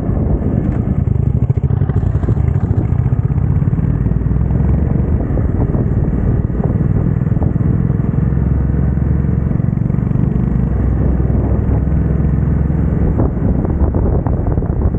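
Hero Xpulse 200T's single-cylinder engine running steadily while the motorcycle is ridden along the road.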